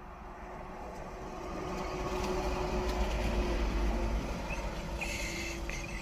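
Vehicle noise, a broad rumble that swells to its loudest about three seconds in, then eases off.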